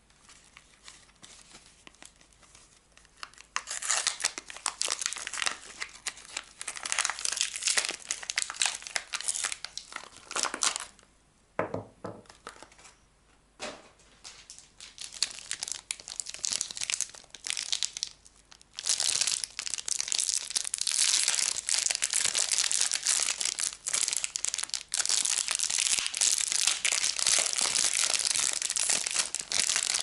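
Thin plastic film wrapper on a bar of soap being crinkled and torn open by hand. Quiet for the first few seconds, then crinkling in spells with a short lull midway, turning dense and continuous in the second half as the wrapper is peeled off the bar.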